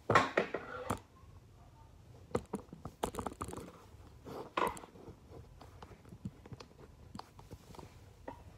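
Irregular clicks, taps and rustles of a phone being handled close to its microphone, loudest in the first second and again about halfway through.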